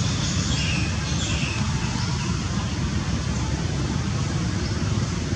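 Steady low outdoor rumble, with a few faint high chirps in the first two seconds.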